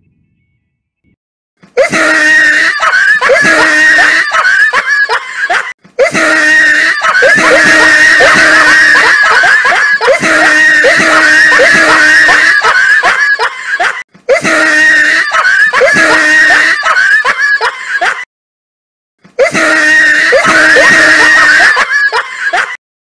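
A very loud, distorted scream-like sound held on one pitch. It starts about two seconds in and comes in four stretches, broken by short silent gaps.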